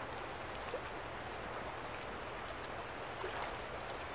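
Steady outdoor ambience beside a city river: an even hiss of flowing water and distant traffic, with a faint low hum underneath.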